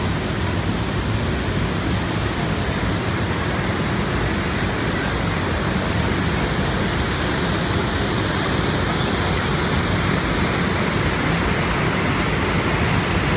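Whitewater of the Sheep River rushing over and below the falls: a steady, loud rush of water that grows a little louder near the end.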